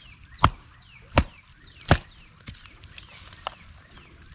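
A wooden stick clubbing a steelhead trout on the head to kill it: three hard blows about three quarters of a second apart, then a lighter knock.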